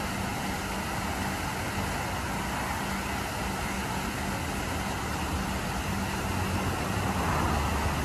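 Steady splashing of a multi-jet plaza fountain's water falling into its basin, mixed with a low rumble of road traffic that swells slightly near the end.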